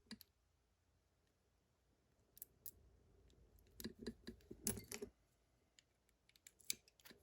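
A few faint metallic clicks and taps from a Miwa magnetic cam lock being handled, against near silence, with a small cluster of them about four to five seconds in.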